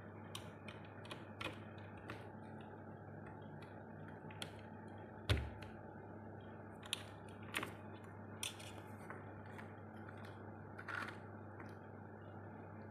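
Scattered, irregular light clicks and taps of small hard plastic items being handled, with one louder thump about five seconds in, over a low steady hum.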